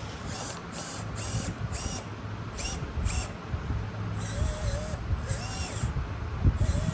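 Electric motor and gearbox of a small-scale RC off-road truck whining in a series of short throttle bursts, the pitch rising and falling with each one.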